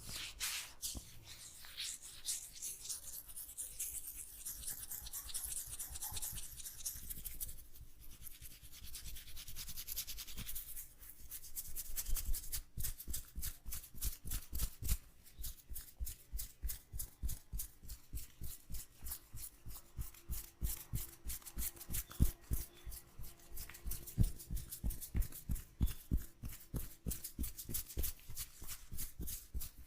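Hands massaging an oiled head, first rubbing and scrubbing through the hair and scalp with a steady hiss. About ten seconds in they switch to quick, even tapping strokes on the head, each with a dull thud.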